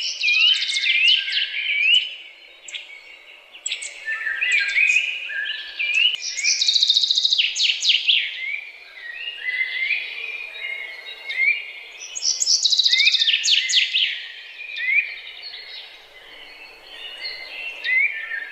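Songbirds singing, several overlapping songs of short rising whistles and rapid high trills that come in bursts with brief lulls.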